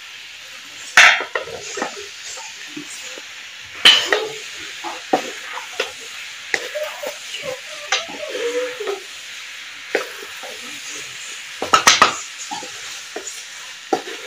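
Okra and tomatoes sizzling steadily as they fry in a wok, while a spatula stirring them scrapes and knocks against the pan about four times.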